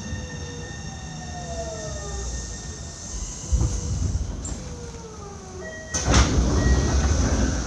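Train running sound inside a Tokyo Metro 7000 series car: the Hitachi IGBT-VVVF inverter's whine comes in a series of short falling tones as the train brakes into the station, with a thump about three and a half seconds in. About six seconds in, a louder rush of noise lasting over a second as the sliding doors open.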